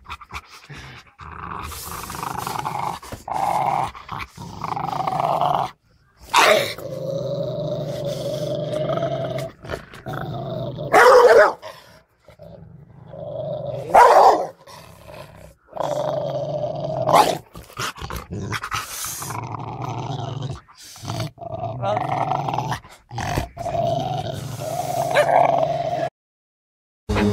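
Dogs growling, yipping and barking across a string of short clips with abrupt cuts between them, with a few loud sharp sounds standing out.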